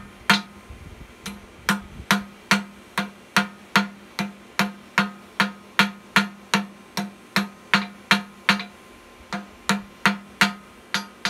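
Hand hammer striking hot round steel bar on an anvil, a bit over two blows a second in an even rhythm, each blow ringing briefly off the anvil, with one short pause about a second in. The steel is being drawn out into a long thin rod.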